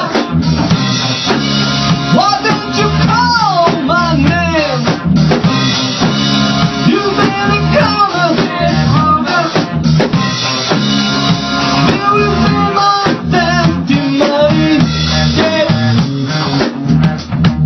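A rock band playing: a drum kit keeps a steady beat under guitar and bass, with a gliding melody line over them about two to five seconds in.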